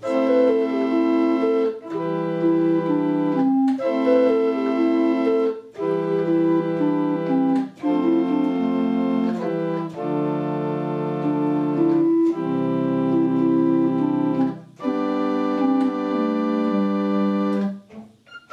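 Pipe organ played from its console: sustained chords with a moving melody line on top, in phrases of about two seconds each with short breaks between.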